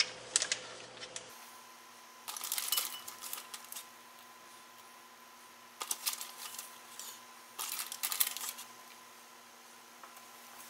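Light metallic clicks and rattles of a wire cooling rack on a baking sheet as pieces of raw fish fillet are set down on it, in three short bursts, over a faint steady hum.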